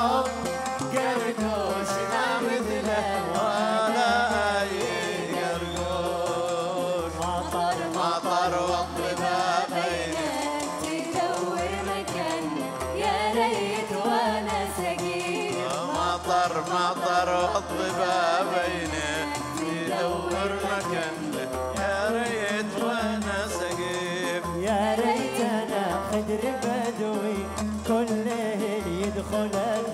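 Live Yemeni song performance: a wavering melody line over a steady low drum beat about once a second.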